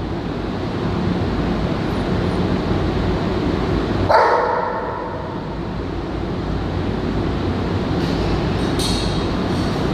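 Dogs barking in a kennel, a steady din of barks with one louder bark about four seconds in.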